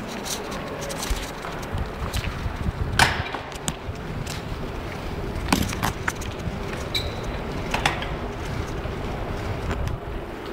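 Bicycle being ridden along a rough surface: a steady low rumble of tyres and rushing air, broken by scattered knocks and rattles, the loudest about three seconds in.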